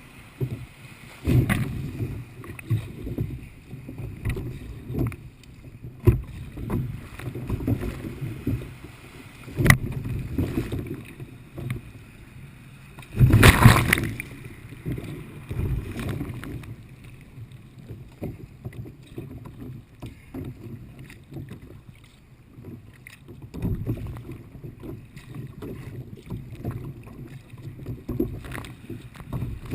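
Kayak paddling in light chop: water sloshing and splashing against the hull with irregular paddle-stroke splashes and occasional sharp knocks. A louder, longer splash comes about thirteen seconds in.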